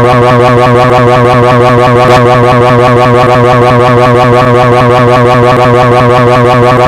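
Pocoyo's cartoon scream sound effect, a loud unbroken 'jrararara' trill whose pitch warbles rapidly and evenly.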